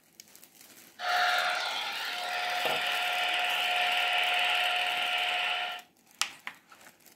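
A steady, breathy whistle-like tone, held for about five seconds, that cuts off suddenly.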